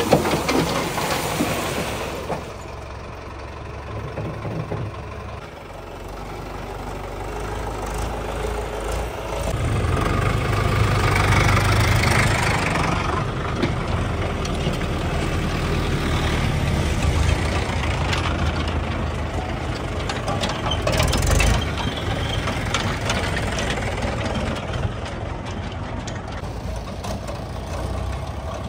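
Diesel tractor engine running. Its low rumble grows louder about a third of the way in, then holds steady.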